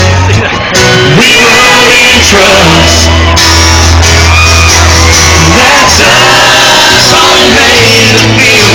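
Loud live country band music playing on between sung lines, with shouts and singing from the crowd.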